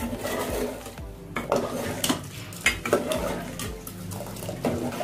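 A metal ladle stirring semiya payasam in an aluminium pot, scraping and knocking against the pot's sides and bottom in an irregular rhythm.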